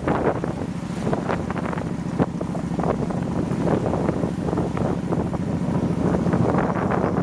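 Wind buffeting the microphone of a moving motorbike, a loud, continuous rough rush with crackly gusts over a low steady rumble.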